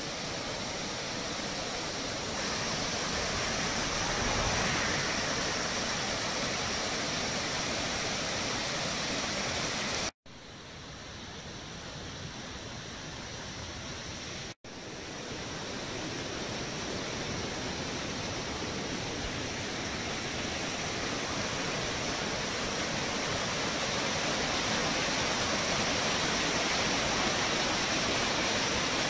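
Rushing water of the Blâme stream's cascade and rapids: a steady wash of white water. It cuts out suddenly twice, about a third and half of the way through, and is quieter and duller between those two cuts.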